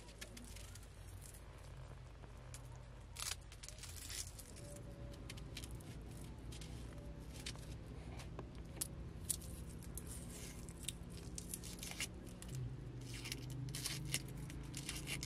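Dry, papery onion skins crackling and tearing as onions are peeled by hand with a small knife, along with garlic cloves being peeled: scattered, irregular crackles and snips.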